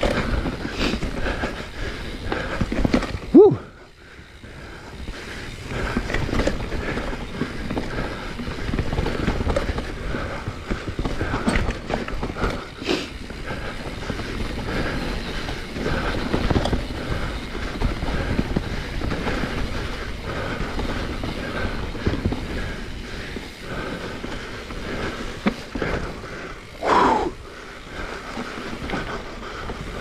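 Mountain bike rattling and rumbling over a rough forest trail, with tyre and wind noise on the action camera. There are two short squeals, one about three seconds in and one near the end, and a brief lull just before four seconds in.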